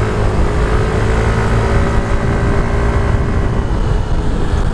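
Motor scooter cruising along a road, its engine running at a steady pitch under heavy wind and road noise.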